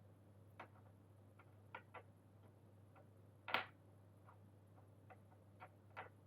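Gateron Yellow mechanical switches being pressed into a keyboard's plate and PCB: scattered small clicks and snaps at an irregular pace, with one louder snap about three and a half seconds in.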